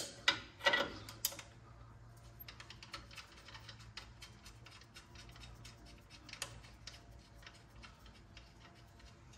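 Light, irregular metallic clicks and ticks of a 12mm bolt and the wheel speed sensor's wiring bracket being handled and fitted by hand at a car's front suspension. A few louder clicks come in the first second or so, then the ticks go on faint.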